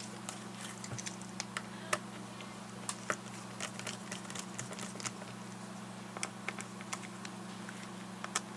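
Scattered small clicks and taps from handling a Garmin nüvi GPS's plastic casing and small tools on a work surface, over a steady low hum.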